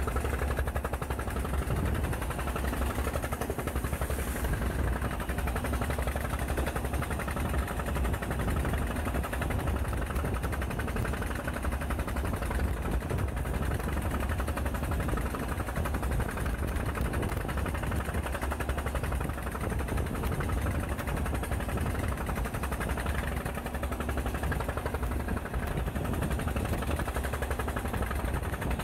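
A fishing boat's engine running steadily under way, a rapid, even pulsing with a deep rumble beneath, mixed with the rush of water and waves breaking against the hull in rough seas.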